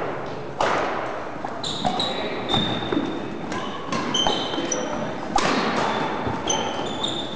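Badminton play in a reverberant sports hall: sharp racket-on-shuttlecock hits about once a second, mixed with short high squeaks of court shoes on the wooden floor.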